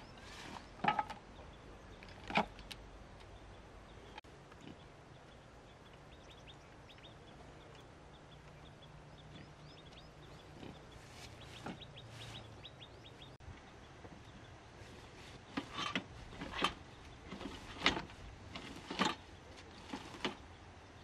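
Scattered sharp knocks: two in the first few seconds, one midway, then a quick run of several in the last five seconds. Faint high bird chirps come between them.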